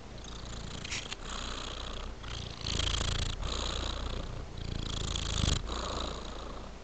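Tabby-and-white domestic cat purring steadily, the purr pulsing with each breath roughly once a second.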